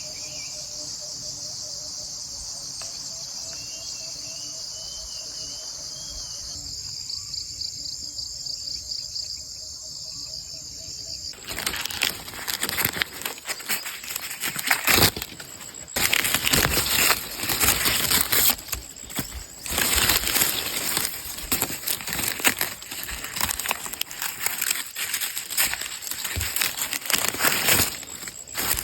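Insects trilling steadily in a cornfield, then from about eleven seconds in, loud rustling and crackling of dry corn leaves and husks as ears of corn are picked, with sharp snaps among the rustle.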